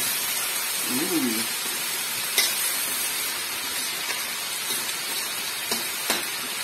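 Ground beef sizzling as it browns in a hot wok, stirred with a metal spatula that clicks against the pan a few times.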